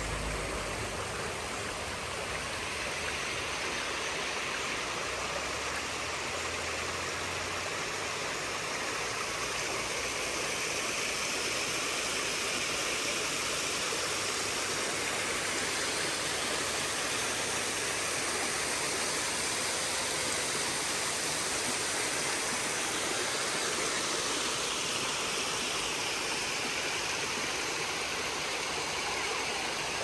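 Creek water running and splashing down small cascades over rock ledges at a waterfall: a steady, even rush.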